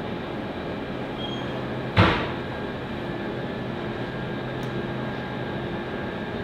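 Steady room hum with a single sharp knock about two seconds in, the loudest sound here.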